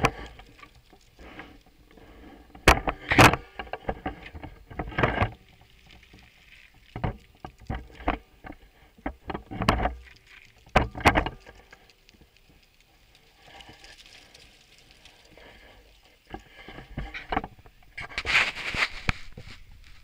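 Camera handling noise: irregular knocks, clicks and scuffs, with a longer rustling stretch near the end.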